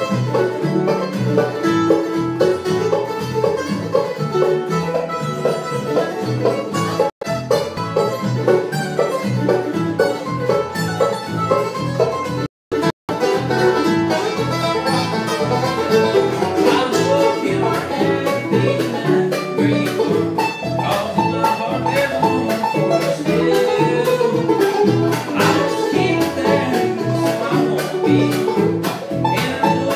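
Bluegrass band playing on five-string banjo, acoustic guitar and upright bass, with the banjo's bright rolls to the fore. The sound drops out very briefly about seven seconds in and twice more near the middle.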